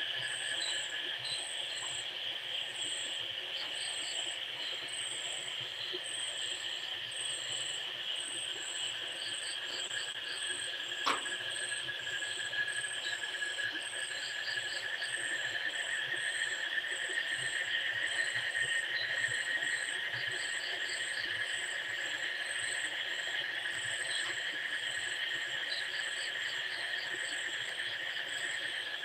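Insects chirring steadily in a night chorus, with rapid, repeating chirp trills above the steady drone. One sharp click about eleven seconds in.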